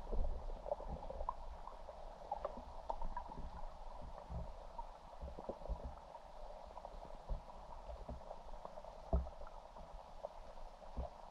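Muffled underwater noise picked up by a submerged camera: a low rumble with irregular soft knocks and clicks, and one louder thump about nine seconds in.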